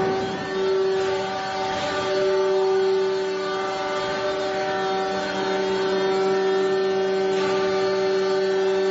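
Steady electrical hum and whine of several held tones from an induction melting furnace's power supply cabinets.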